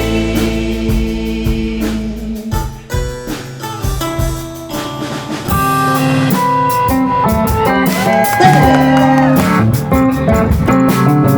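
Instrumental stretch of a rock song, led by guitar over a band, thinning out briefly and then filling back in about halfway through, with bending notes near the end.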